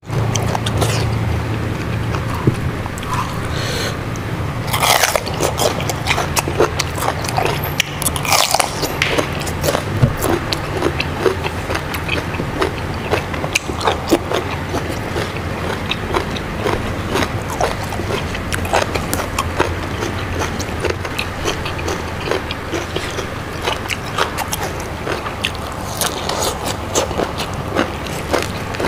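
Close-miked eating: steady chewing and biting with many small crunches and wet clicks as raw vegetables such as young jengkol and bitter melon are eaten with rice and sambal. A low steady hum sits underneath for roughly the first third.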